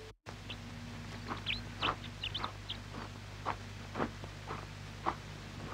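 Footsteps of two people walking in sandals on a dirt and gravel path, about two steps a second. Small birds chirp high above in the first half.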